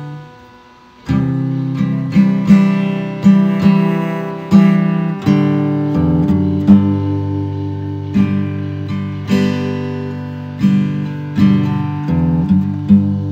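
Acoustic guitar music, strummed chords ringing out one after another; after a short lull at the start, the strumming comes back in about a second in.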